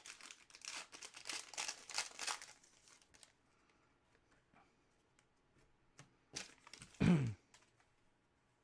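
Foil trading-card pack wrapper being torn open and crinkled for about three seconds, then a few faint clicks. About seven seconds in there is one short, loud sound that falls in pitch.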